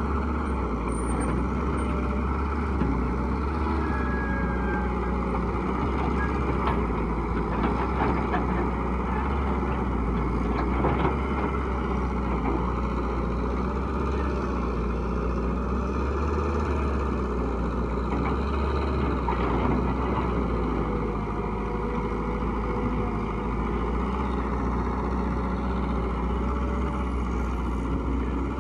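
Heavy diesel construction machinery, an excavator or the truck it loads, running steadily under a low hum, with a few brief knocks partway through.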